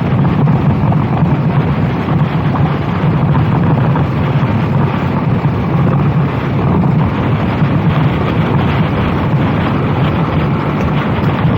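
A racing kart's engine running steadily at speed, with heavy wind noise buffeting the microphone.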